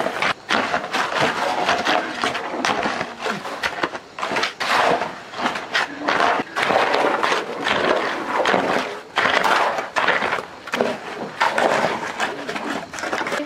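Rough scraping strokes in quick, irregular succession, about one or two a second, with no pause.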